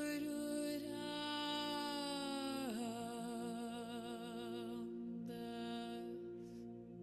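A voice humming a long held note over a steady droning background. The note dips in pitch just under three seconds in and wavers until about five seconds, and a second, shorter hum follows.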